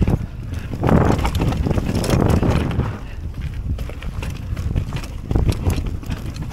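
Mountain bike descending a stony mountain path: wind buffets the microphone while the tyres roll over rock and the bike rattles with many short clicks. It gets louder for a stretch about a second in.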